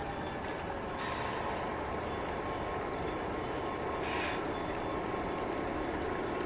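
O scale model diesel locomotive's sound system idling steadily while the train stands stopped, with a short hiss about four seconds in.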